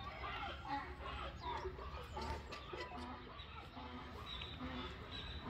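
Farmyard hens clucking in short, scattered calls.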